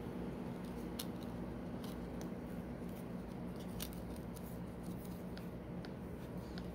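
Cardstock hang tags on a plush toy being handled and flipped open: scattered sharp paper clicks and ticks over a steady low hum.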